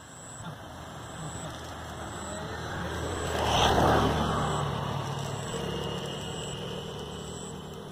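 A motor vehicle passing by: its noise swells, peaks about three and a half seconds in, then fades away.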